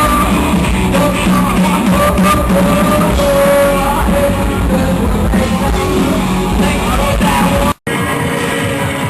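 Loud rock music with a singer holding long notes over a full band, typical of a live band playing through a PA. It cuts off abruptly near the end and gives way to a different, thinner stretch of music.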